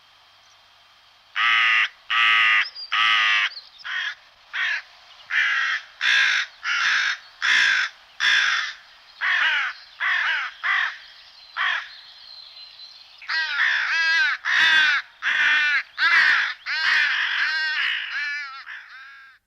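A crow cawing over and over: about twenty harsh calls, starting about a second in, spaced out through the middle and coming close together near the end.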